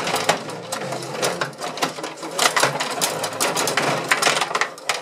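Rod hockey table in play: control rods pushed, pulled and twisted, their plastic players clacking and rattling in a rapid, irregular clatter.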